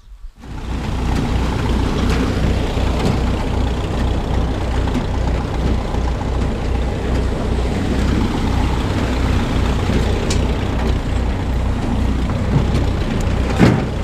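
Tractor engine running steadily with an even low throb, with a short clank near the end.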